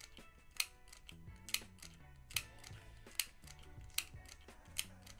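Handheld stapler-style mini manual sewing machine clicking shut with each firm squeeze as it stitches through fabric: six sharp clicks a little under a second apart.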